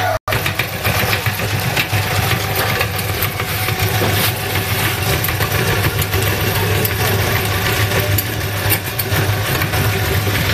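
Motor-driven meat-grinder machine running with a steady hum and constant irregular rattling and clicking as it grinds maggots. The sound cuts out for an instant just after the start.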